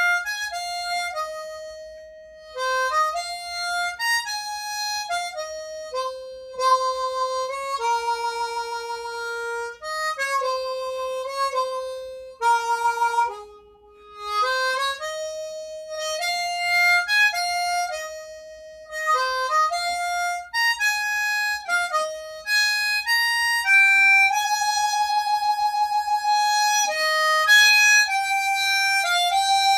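Solo harmonica playing a slow gospel melody in single held notes, some of the long notes wavering with vibrato.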